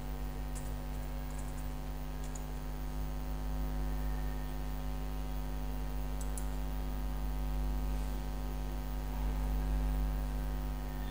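Steady electrical mains hum. Over it come a few faint keyboard clicks in the first couple of seconds as a password is typed, and another short click about six seconds in.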